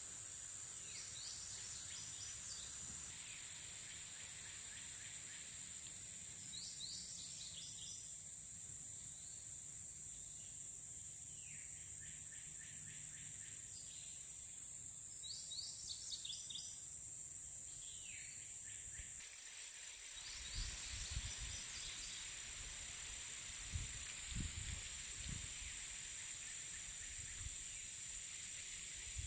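Summer outdoor ambience: a steady high-pitched insect drone, with a bird calling several times in short groups of descending notes. In the second half, low rumbles of wind buffet the microphone.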